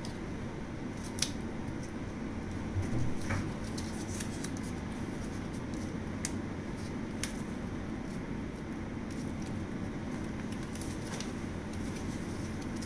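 Sheets of origami paper being folded and creased by hand, a few sharp crinkles and small clicks, with a couple of soft bumps around three seconds in, over a steady low room hum.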